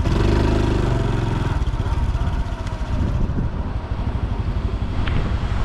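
Honda Super Cub C125's single-cylinder four-stroke engine and exhaust running while the bike is ridden, fuller for the first second or so and then steadier.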